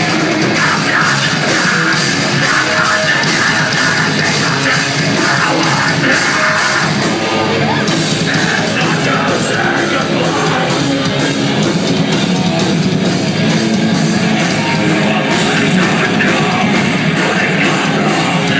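Hardcore band playing live and loud: distorted guitars, screamed vocals and drums beating about three strikes a second.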